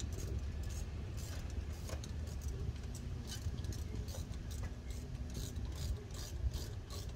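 Ratcheting wrench clicking in short irregular runs as it turns a hose-clamp screw, over a low steady rumble.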